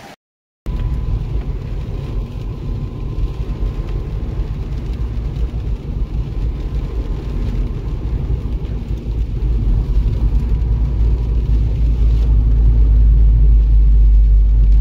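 Low, steady rumble of engine and tyre noise inside the cabin of a Toyota MR2 (SW20) driving on a rain-soaked road, growing gradually louder. It starts after a half-second gap.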